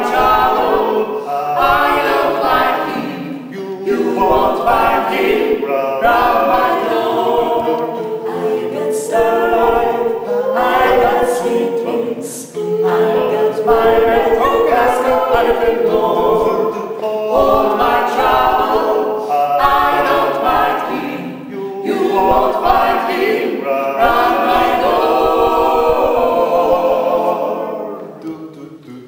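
Mixed a cappella vocal ensemble of five voices, men and women, singing in close harmony, with no instruments. The sound dips briefly near the end as a phrase closes.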